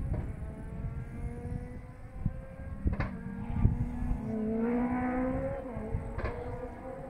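Lada VFTS rally car's four-cylinder engine revving hard out of sight, its note rising in pitch and loudest past the middle, with a sharp crack about three seconds in and another near the end.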